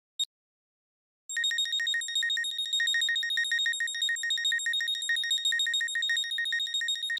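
Arturia OP-Xa V software synthesizer patch playing a high-pitched tone that pulses rapidly and evenly, like a ringing phone bell, starting about a second in after a brief blip and cutting off suddenly.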